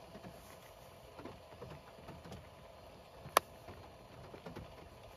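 Faint, irregular soft ticking and rustling as date sugar is poured from a plastic pouch into a pot of simmering cranberry sauce, with one sharp click about three and a half seconds in.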